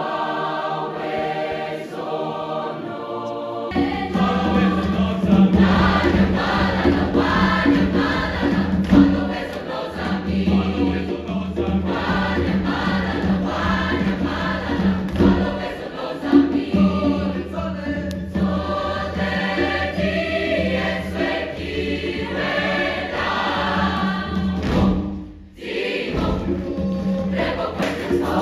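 Large mixed choir singing a piece together. For the first few seconds only voices are heard; about four seconds in a strong, deep low part comes in and carries on under the singing, with a brief drop in level near the end.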